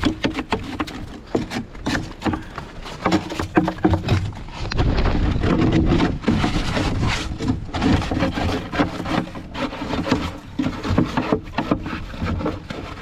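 Irregular crunching and scraping knocks close by, over the steady running of a compact tractor engine.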